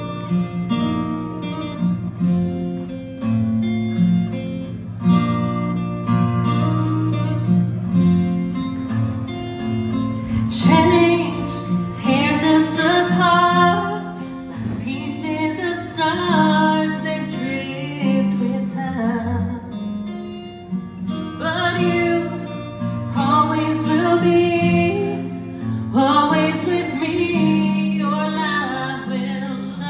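Acoustic guitar played as accompaniment, with a woman's singing voice coming in about ten seconds in and carrying on over the guitar.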